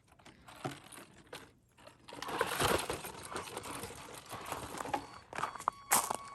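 A 1/10-scale RC rock crawler scrabbling on rock and gravel: its tyres grind and crunch over stone while its electric drivetrain works, as it tries to get off a rock it is hung up on. The crunching starts about two seconds in, after a faint start.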